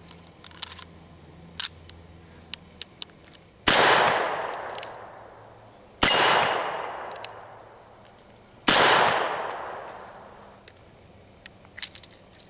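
Three shots from a Smith & Wesson Model 1917 .45 ACP revolver, about two and a half seconds apart, each echoing away over about two seconds. Before them come light metallic clicks as a moon clip of cartridges is seated and the cylinder closed. Near the end, clicks as the cylinder is swung open and the spent brass on its moon clip is removed.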